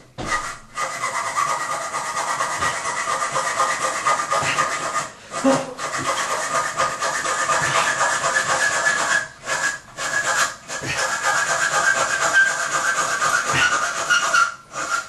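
A bare reciprocating-saw blade held in the hand, sawing back and forth through a metal toilet bolt to cut off its protruding end. The steady rasping stops briefly a few times: near the start, around five seconds in, a few times around ten seconds in, and near the end.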